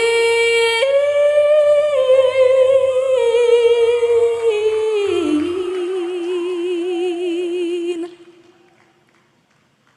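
A woman's solo singing voice holding long, sustained notes with a wide vibrato, stepping down in pitch to a final held note that ends about eight seconds in.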